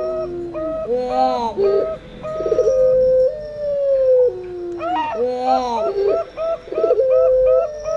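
Puter pelung and perkutut (zebra dove) cooing. Twice a long drawn coo slides down in pitch, over a rapid string of short, even notes at about three a second and brief higher trills.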